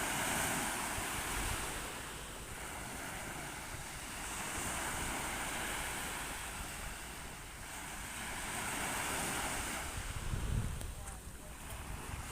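Sea waves washing, rising and falling in slow swells, with wind rumbling on the microphone; a stronger gust of wind rumble comes about ten seconds in.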